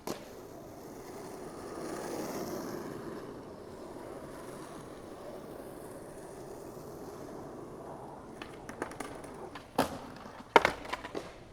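Skateboard wheels rolling over concrete, the rolling growing louder about two seconds in, then a string of sharp clacks of the board striking the ground near the end, the loudest about ten and a half seconds in.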